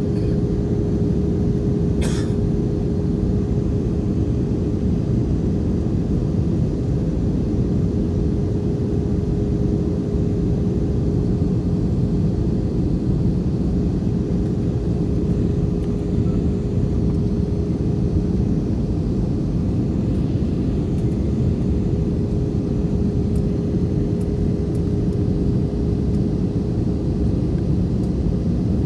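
Steady cabin noise of an Airbus A320-family jet airliner in flight: the low rumble of the engines and airflow with a constant hum running through it. A single sharp click about two seconds in.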